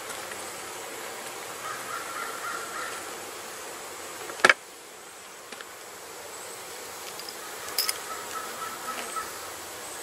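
Honey bees buzzing steadily around an open Langstroth hive, with a single sharp knock about four and a half seconds in and a fainter click near the end.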